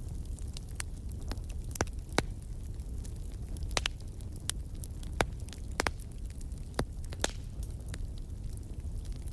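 Wood fire in a fireplace crackling, with irregular sharp pops and snaps over a steady low rumble of the flames; about half a dozen pops stand out louder than the rest.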